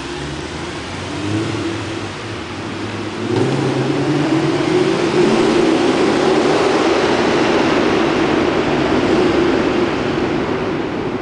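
Mercedes-Benz E63 AMG's 6.3-litre V8 running on its stock exhaust. It gets suddenly louder about three seconds in as the throttle opens, holds there, and eases off near the end.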